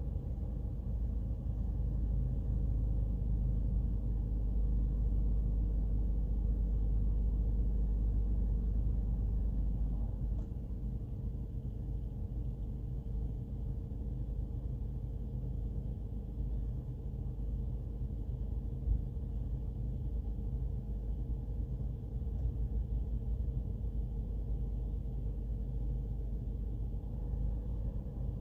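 A sleeping corgi snoring softly: a low rumble, stronger in the first ten seconds or so.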